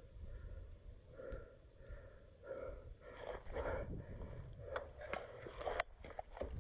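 A person breathing close to the microphone, short nasal breaths about every half second. A few sharp clicks or snaps come in the last couple of seconds.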